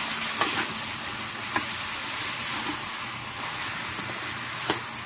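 Chicken pieces sizzling in hot oil in a metal wok, turned over with a metal ladle that clinks against the pan three times.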